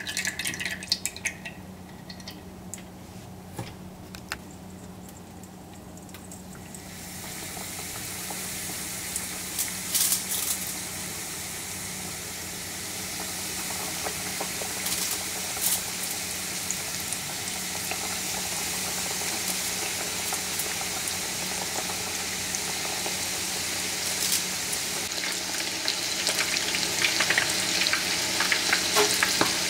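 Panko-crumbed fish fillets deep-frying in hot oil in a frying pan, a dense steady sizzle with occasional pops. The sizzle starts suddenly about seven seconds in and grows louder toward the end.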